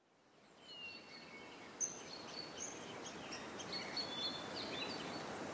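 Faint outdoor ambience that fades in from silence: several birds giving short high chirps and whistles over a steady background hiss. There is a single sharp click a little under two seconds in.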